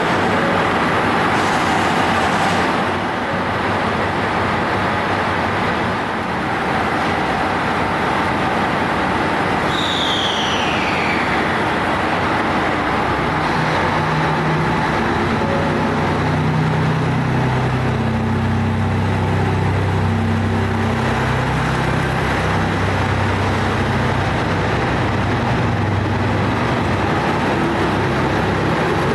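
The diesel engines of a 2700-series DMU run at a station platform, and from about 13 seconds in a low engine drone builds and shifts in pitch as the train throttles up to pull away. A short falling whistle sounds about ten seconds in.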